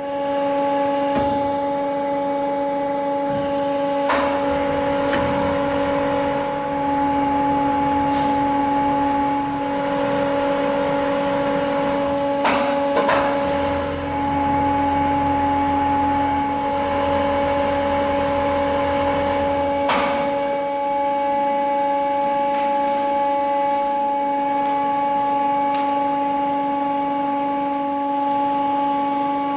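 BRP BA50 CNC section-bending roll machine running: a steady motor hum of several constant tones, with a few sharp clicks or knocks. A lower rumble joins for several seconds in the middle.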